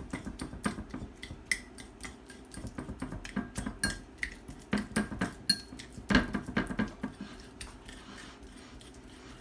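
A metal utensil mashing avocado on a plate: irregular clinks and taps of metal against the plate, several a second, tapering off near the end.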